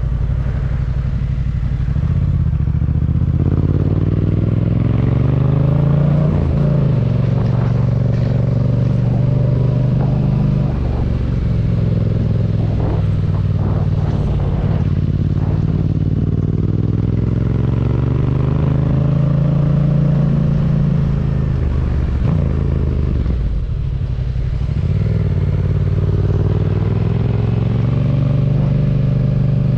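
A 2019 Yamaha MT-07's parallel-twin engine running through a Yoshimura R77 carbon-fibre exhaust while riding at low speed. Its pitch rises and falls several times as the throttle is opened and eased off, with a few short clatters in the middle.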